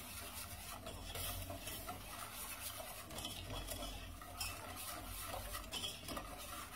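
A utensil stirring flour into melted butter and milk in a saucepan, scraping steadily around the pot to keep the béchamel from forming lumps.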